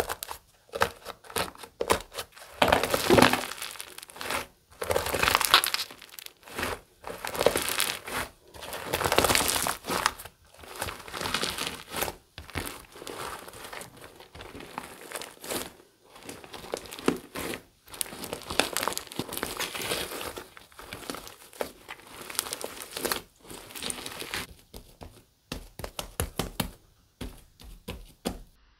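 Iceberg slime's dried, crusty top layer crackling and crunching under the fingers, in repeated crinkly surges every second or two. Toward the end, as the broken crust is kneaded into the soft slime, the crackling thins out to scattered clicks.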